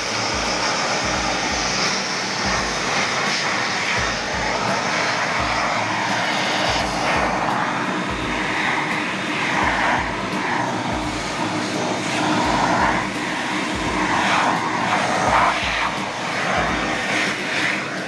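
Krisbow Pro FPVCW30 1000-watt wet-and-dry vacuum cleaner running steadily while its hose nozzle sucks up metal powder from a workbench. The rushing airflow changes in level and pitch as the nozzle is moved over the surface.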